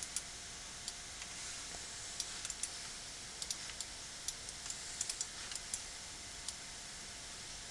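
Scattered light clicks of a computer mouse and keyboard, some in quick pairs, over a faint steady hiss.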